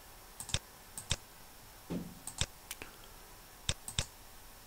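Computer mouse button clicks: about ten short, sharp clicks, mostly in quick pairs of press and release.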